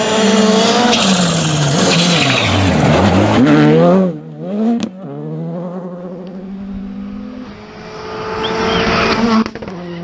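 Skoda Fabia R5 rally car's 1.6-litre turbocharged four-cylinder engine at full power, the pitch rising and falling through gear changes and dipping low around three seconds in as the car slows. After an abrupt cut about four seconds in, the engine is heard further off holding a steady note, then grows louder as the car approaches.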